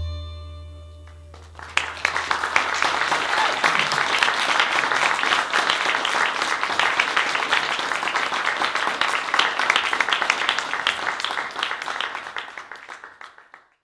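A last sitar note rings and dies away, then an audience applauds for about twelve seconds, the clapping fading out near the end.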